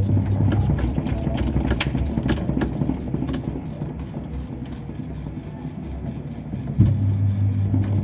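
Top-load washing machine's electric motor running with a steady low hum, cutting out about a second in; the drive then coasts down with a loose rumble and a run of sharp clicks and rattles. Near the end the motor starts again with a sudden thump, and the hum returns.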